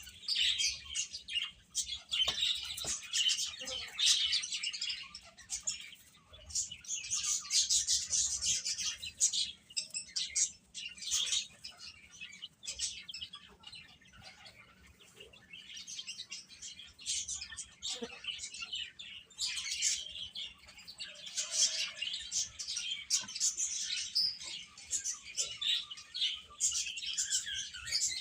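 A group of baby chicks peeping, with many quick high chirps overlapping. The chirping thins out and gets quieter for a few seconds around the middle.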